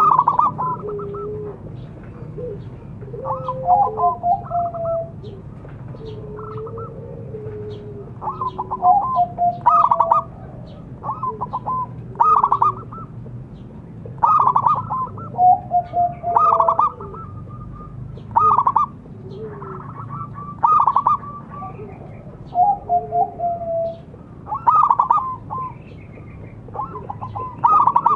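Zebra dove (perkutut) cooing: short, fast-trilled phrases, each with a gliding lower note, repeated about every two seconds.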